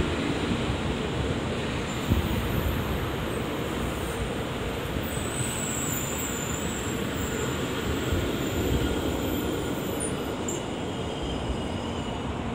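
Tokaido Shinkansen train moving past along the platform: a steady noise of wheels and running gear as the cars go by, with one brief knock about two seconds in.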